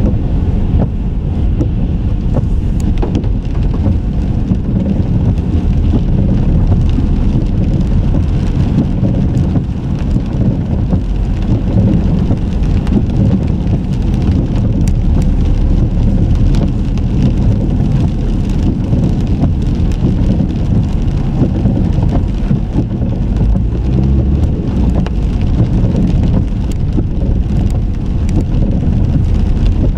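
A car driving along city streets: a steady low rumble of road and engine noise.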